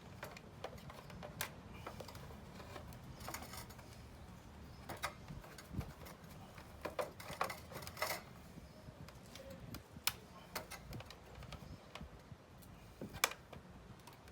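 Irregular clicks, taps and light rattles of metal and plastic parts being handled, with a few sharper knocks, busiest in the middle and with a single loud click near the end.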